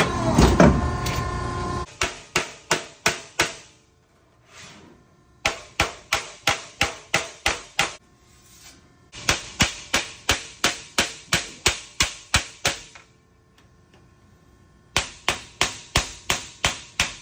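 Sheet metal being struck rapidly with a hammer, about four ringing metallic blows a second, in several bursts with short pauses between them. A loud, noisy stretch with a ringing tone in it stops sharply about two seconds in.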